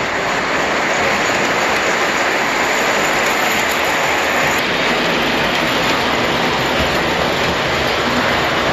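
1929 Ives Olympian tinplate toy electric train running on metal track: a steady, even rushing rattle of wheels and motor.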